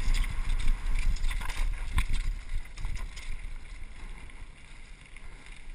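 Rushing, rumbling wind-type noise on the microphone with a few sharp knocks in the first two seconds, dying down over the second half.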